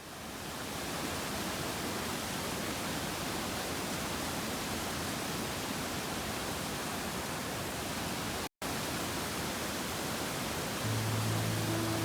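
Steady rushing roar of a mountain waterfall, cut off for an instant about two-thirds of the way through. Music comes in near the end.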